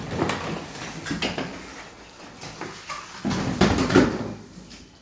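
Vacuum cleaner attachments and parts being handled and unpacked: scattered knocks and clatter, loudest about three and a half seconds in.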